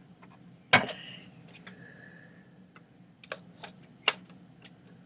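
Hard plastic parts of a Halo paintball loader knocking and clicking as it is handled and reassembled: one sharp knock with a brief ring about a second in, then a few light clicks near the end.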